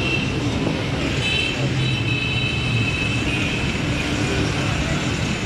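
Steady street traffic noise from a busy road, with a high thin whine running through much of it.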